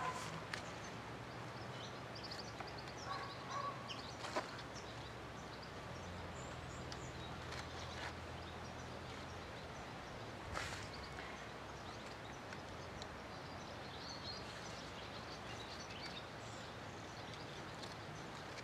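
Faint outdoor ambience: distant bird calls over a low steady hum, with a sharp click about four seconds in and another about ten seconds in.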